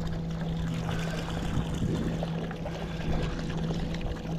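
A boat's motor hums steadily under water sloshing and splashing against the hull.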